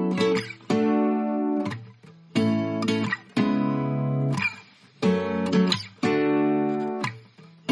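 Background music: an acoustic guitar strumming chords, each chord struck sharply and left to ring out for about a second before the next.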